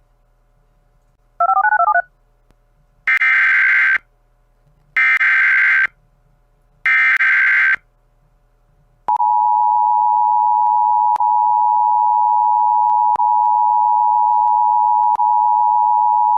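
Emergency Alert System tones: a short warbling beep, then three harsh, buzzing bursts of SAME digital header data about two seconds apart. About nine seconds in, the steady two-tone EAS attention signal begins and holds, announcing the alert message that follows.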